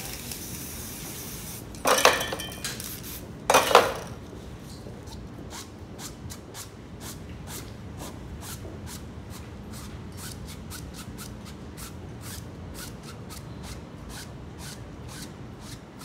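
Short hissing blasts from a spray-paint can, two loud ones in the first few seconds. Then a sheet of paper is rubbed and scraped across the painted board in quick, repeated strokes, about two or three a second.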